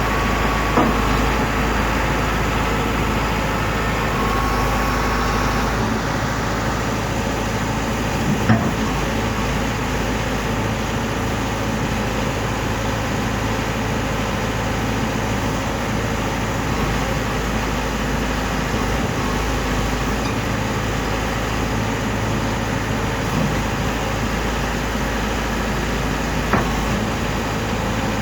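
Articulated backhoe loader's diesel engine running steadily under work, with three sharp metallic knocks from the machine spread across the stretch.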